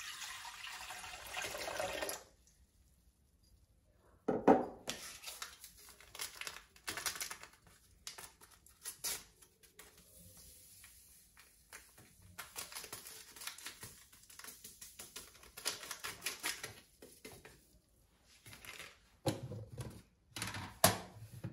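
A tap runs for about two seconds and stops. Then come scattered clicks, knocks and rustling of things being handled, the loudest a sharp knock about four and a half seconds in.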